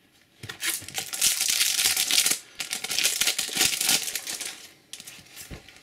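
Trading-card booster pack wrapper crinkling and tearing as the pack is taken from the display box and ripped open, in two long stretches of crackling that die away to a few small clicks near the end.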